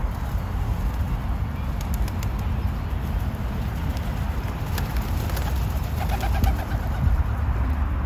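Rock pigeons cooing over a steady low rumble, with a few short clicks.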